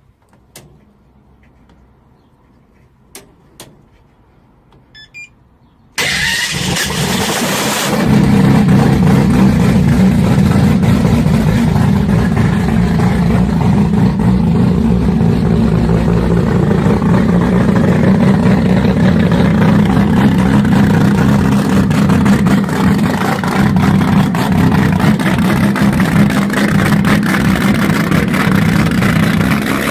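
Double-turbo engine starting up about six seconds in after a few faint clicks, then running loudly and steadily.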